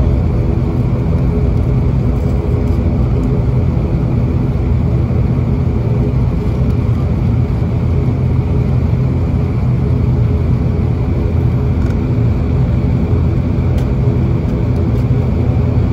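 ATR 72-600's Pratt & Whitney PW127 turboprop engine and propeller droning steadily at taxi power, heard from inside the cabin.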